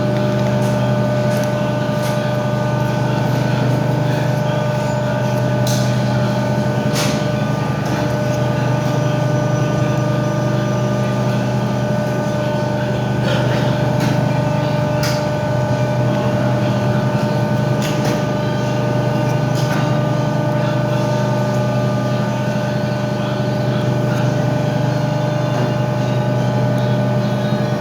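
A steady mechanical hum with a few brief sharp clicks scattered through it.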